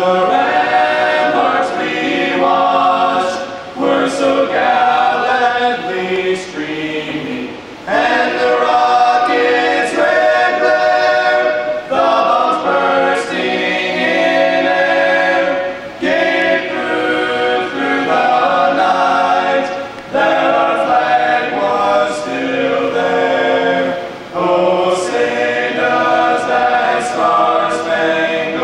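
A choir singing the national anthem without instruments, in phrases of long held notes with short breaths between them.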